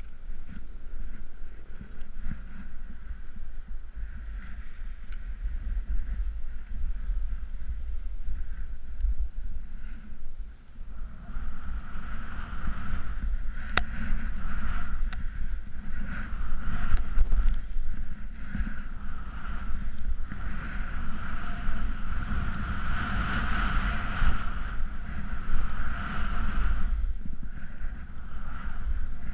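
Snowboard sliding down a steep snow slope, its base and edges hissing and scraping over the snow, with wind buffeting the helmet camera's microphone. The snow hiss grows clearly louder about a third of the way in.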